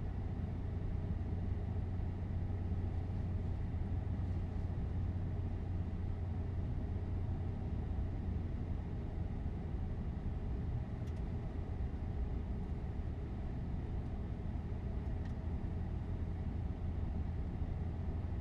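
Steady cockpit noise of a Boeing 747-8 taxiing: a constant low hum of the idling engines and air systems, with a couple of faint clicks.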